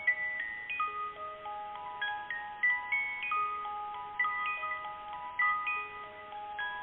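Electronic emergency alert tone: a string of clear, pure chiming tones, each held about half a second to a second and overlapping the next, stepping irregularly up and down in pitch.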